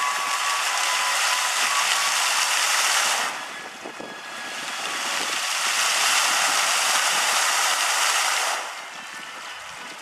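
Water jets of a musical fountain spraying and splashing into the basin as a loud, steady hiss that surges twice: strong for the first three seconds, dropping, then building again from about four and a half seconds and falling away at about eight and a half seconds as the jets sink.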